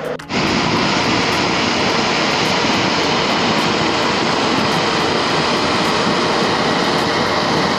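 MSR PocketRocket 2 canister stove burning at full flame on an isobutane-propane canister, a steady loud hiss of gas rushing through the burner. The sound breaks off for a moment right at the start, then runs on evenly.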